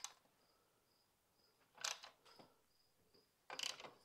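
Faint clicks and scrapes of a hand tool working the 6 mm bolts under a motorcycle's rear fender, heard about two seconds in and again near the end. Behind them, a faint high chirp repeats about twice a second.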